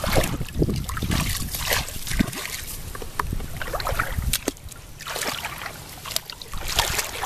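Shallow water splashing and sloshing as a person wades and gropes through a grassy channel, in irregular splashes and clicks over a low rumble.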